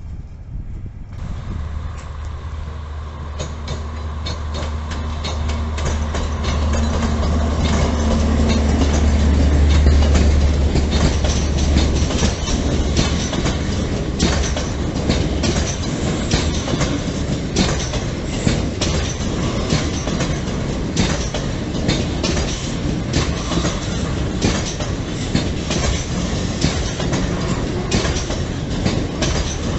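DE6400 diesel-electric locomotive's engine hum, growing louder as it approaches and passes, then fading. It is followed by a long train of double-deck car-carrier wagons rolling by with a steady run of wheel clicks over the rail joints.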